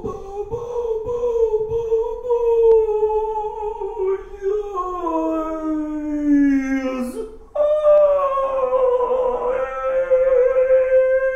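Man's voice improvising wordlessly into a hand-cupped microphone: one long held tone that slides slowly downward, breaks off about seven seconds in, then comes back on a higher note and holds steady.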